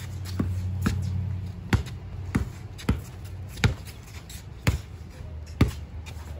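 Basketball dribbled on a concrete driveway: sharp single bounces at an uneven pace, a little more than one a second, over a low steady hum.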